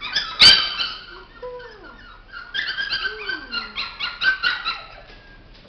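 Young dog whining and yelping in short, high-pitched cries in excited greeting, with one loud, sharp yelp about half a second in and a second run of cries from about two and a half seconds in.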